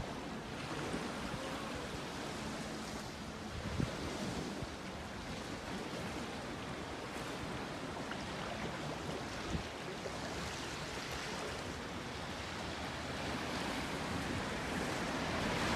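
Sea waves washing on the shore, a steady rushing noise with some wind.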